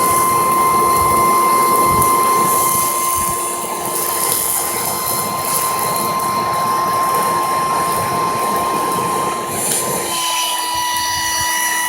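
Small electric air-mattress pump running with a steady high whine, forcing air through a pipe into a charcoal fire, which gives a rushing noise underneath. The pump is blowing too much air for the fire. About ten seconds in, the low rushing drops away while the whine carries on.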